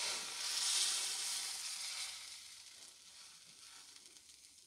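Thin rice-flour and egg batter sizzling in a well-heated, oiled aluminium frying pan. The sizzle is loudest about a second in and then fades away over the next few seconds.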